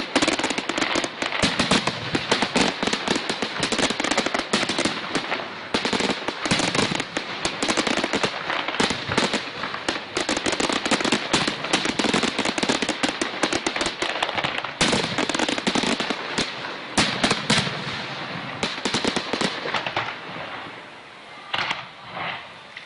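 Fireworks finale: a dense, rapid barrage of bangs and crackling bursts, thinning to a few last bangs near the end.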